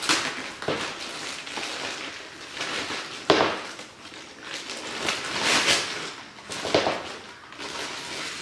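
Christmas wrapping paper being torn and crinkled in irregular rustling bursts, with a couple of sharp rips.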